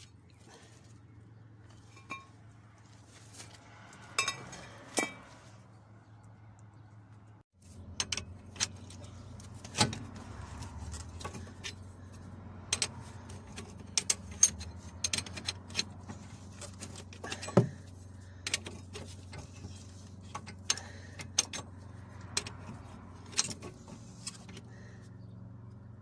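Scattered sharp metallic clicks and clinks of tools and metal parts being handled during a car brake job, over a steady low hum. The sound cuts out briefly about seven and a half seconds in.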